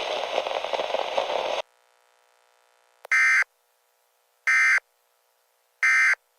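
Three short, identical bursts of Emergency Alert System digital data tones, about a second apart: the end-of-message signal that closes an EAS broadcast. Before them, a steady noisy hiss cuts off suddenly about a second and a half in.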